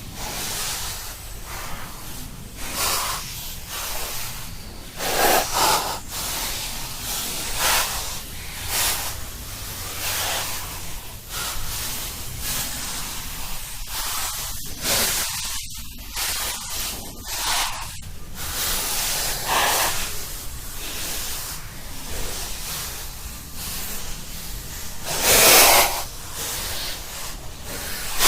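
Heavy human breathing as a horror sound effect, hissing breaths drawn and let out about once a second. There is a quieter stretch in the middle, and the loudest breath comes near the end, over a steady low rumble.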